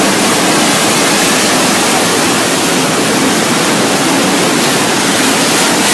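Swollen, fast-flowing floodwater of a river in spate, a loud, steady, even rush of water.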